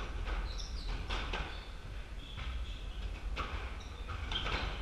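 Squash rally: several sharp smacks of the ball off racket strings and court walls, with brief high squeaks from sneakers on the hardwood floor.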